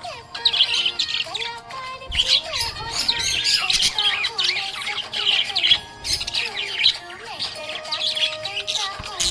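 Budgerigars chirping and warbling in rapid, continuous chatter, over background music with a simple melody.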